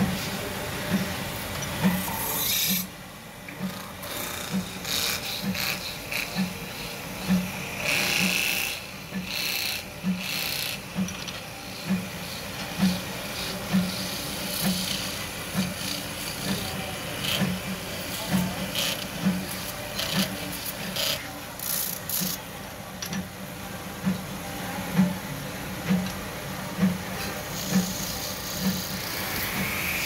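Metal-spinning lathe running, with a steel forming tool pressed against the spinning sheet-iron kettle body, scraping and rubbing on the metal in uneven bursts. A regular low beat from the machine runs underneath.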